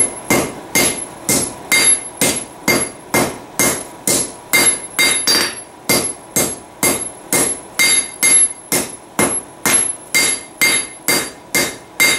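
Hand hammer forging the red-hot end of a Heller farrier rasp on an anvil, shaping the blade's tip. The blows fall at a steady rhythm of about two a second, each with a short metallic ring.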